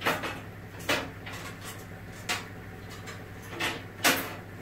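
Metal parts being fitted onto the Triton Mk 3 saw bench's table as it is reconfigured: about five separate knocks and clatters, the loudest near the end.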